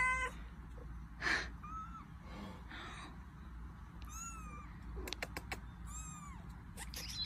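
Kitten mewing: a few short, high, arching mews around the middle and near the end, after a louder meow right at the start. A few sharp clicks come about five seconds in.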